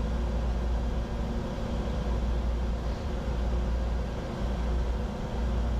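Steady flight-deck noise of a Bombardier Challenger 605 business jet in descent: rushing airflow and engine noise over a deep, even low rumble.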